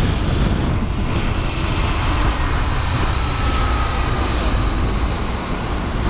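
Steady wind rush and road noise buffeting a moving motorcycle's microphone, with a deep rumble throughout and a faint high whine around the middle.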